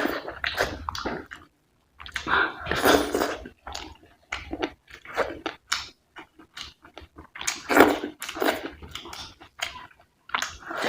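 Close-up wet chewing and mouth sounds of someone eating rice with curry, coming in bursts every two to three seconds.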